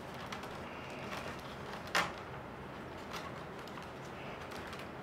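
Faint handling sounds of reed basket rims being pressed and adjusted by hand, with one sharp click about two seconds in and a few soft taps.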